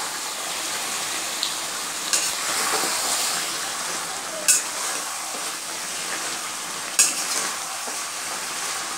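Mutton sizzling as it is stir-fried (kosha) with its spice paste in a metal karai, a metal spatula scraping through it, with sharper knocks of the spatula against the pan about 2, 4.5 and 7 seconds in.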